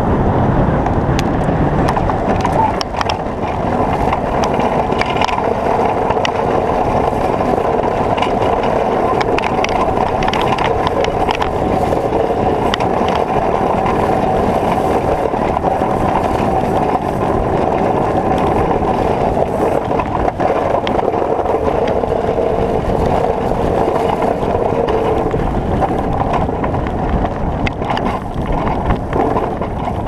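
A vehicle engine running steadily, holding a constant pitch, over wind noise on the microphone.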